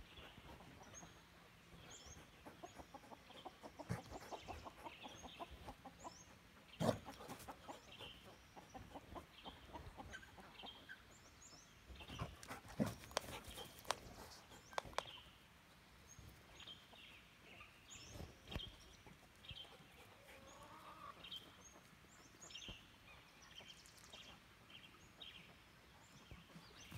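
Hens clucking, with many short high peeps throughout. A few sharp thumps and scuffles stand out, loudest about seven seconds in and again around thirteen seconds in.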